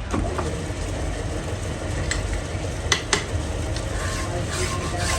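Lathe running steadily with a few sharp metal clinks, then a file rasping against the work in quick repeated strokes near the end.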